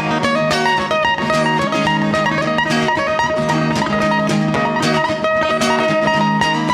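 Two acoustic guitars playing an instrumental break: a picked lead line of held notes that step from one pitch to another, over steady rhythm strumming.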